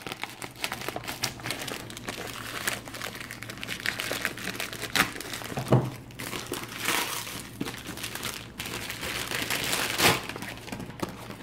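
A plastic postal mailer bag crinkling and rustling as it is opened by hand, with many scattered sharp crackles.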